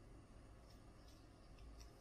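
Near silence, with a few faint light ticks of trading cards being handled.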